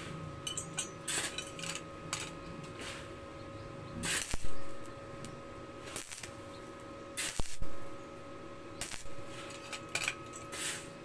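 Metal being worked on a steel socket: repeated sharp metallic clinks and short hissing bursts over a steady mechanical hum, the loudest bursts a little after 4 s and around 7.5 s.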